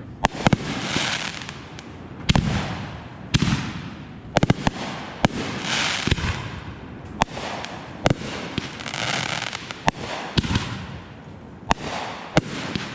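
Consumer fireworks going off: a string of about a dozen sharp bangs, roughly one a second, with crackling and hissing between them.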